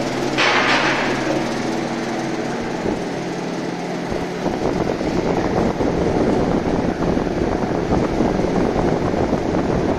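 Rectangular vibro screen running: a steady machine hum that turns into a louder, rougher rattling rumble about halfway through, with a short harsh burst just after the start.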